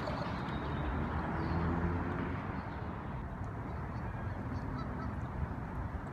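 Steady outdoor wind and water noise with faint honking about one to two seconds in.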